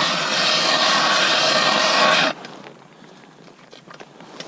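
Ice auger drilling through thick lake ice, a steady grinding that stops abruptly about halfway through.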